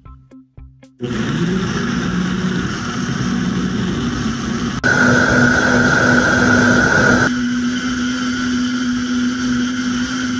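Vitamix A3500 blender motor starting up and rising in speed, then running steadily as it purees fruit and water into a smoothie. It steps up suddenly louder about five seconds in, eases slightly a couple of seconds later, and stops near the end.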